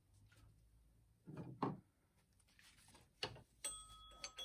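Light mechanical handling under the hood: a few knocks and clicks of a hand tool and hose fitting against the power steering pump plumbing, the loudest about a second and a half in and another about three seconds in. A faint steady high tone comes in near the end.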